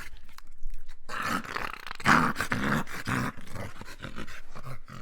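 Dogs growling as they fight, a rough rumbling growl broken into many short pulses, loudest about two seconds in.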